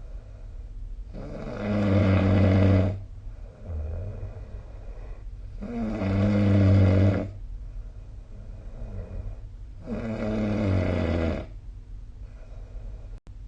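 A person snoring, three loud rasping snores about four seconds apart, each lasting about one and a half to two seconds, with quieter breaths between them.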